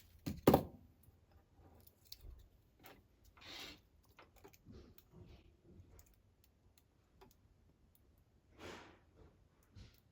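Small clicks and taps of tools and tiny parts being handled during an iPod nano battery fitting, with one sharp knock about half a second in and two short hisses later on.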